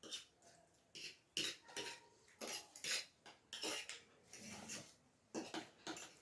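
Cutlery clinking and scraping against plates during a meal: a string of short, irregular clicks, one or two a second.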